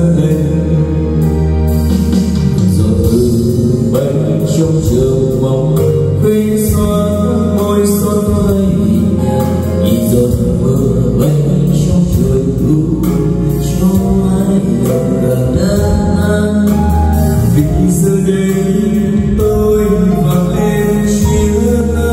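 Karaoke song playing loud through a home karaoke speaker system, with steady bass and a voice singing into a wireless microphone over the backing track.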